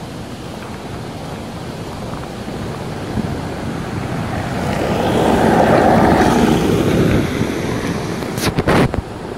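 Outdoor rushing noise, like wind on the microphone, swelling to its loudest about five to six seconds in and then fading, followed by a few sharp knocks near the end.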